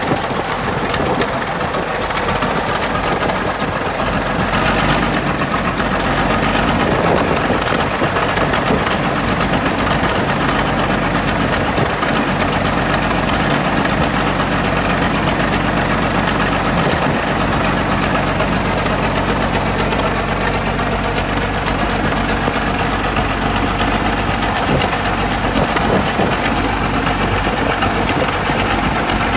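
Engine of a Caterpillar D8 crawler bulldozer running steadily, during a start from its pony starting engine.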